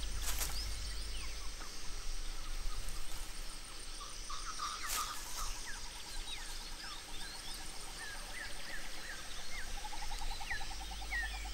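Forest birds calling, with many short chirps and whistles throughout. A fast, evenly pulsed trill comes in about five seconds in and again near the end.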